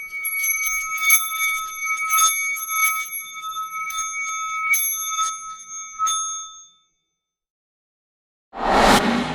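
A small metal bell rung with quick, irregular strikes over a steady ringing for about six and a half seconds, then stopping. About a second before the end comes a loud, sudden rushing noise that fades away.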